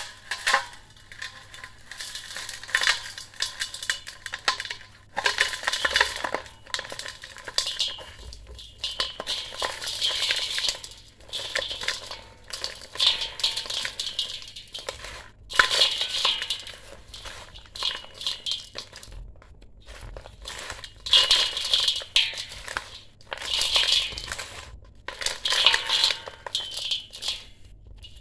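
A block of dry sand cement crunching as hands squeeze and crumble it into a stainless steel bowl: gritty crunches in a run of squeezes, about one every second or two.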